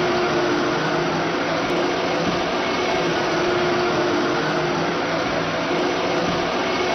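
Teknox Rotor S 2B industrial basket washing machine running its vacuum drying phase: a steady, even rushing noise with a low machine hum under it.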